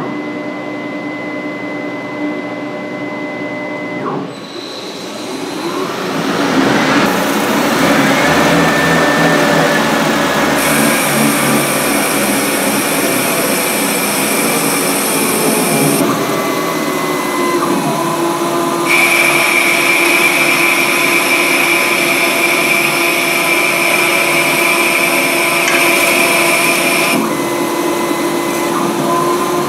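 Emcoturn 120 CNC lathe running: after a steady electrical whine, the spindle spins up with a rising whine about four seconds in. It then runs steadily while the tool turns the bar stock, with a high whine that drops out and comes back a few times as the cut goes on.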